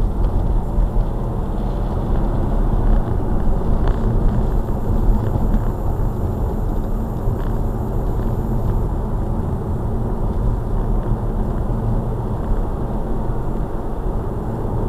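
Steady low tyre and engine rumble of a car driving at about 30 mph, heard from inside the cabin.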